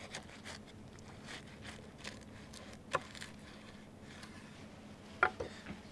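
Knife cutting through a crusty flatbread sandwich with a breaded fried chicken cutlet on a wooden board: faint crunching and crackling of the crust, with a sharper click about three seconds in and another near the end.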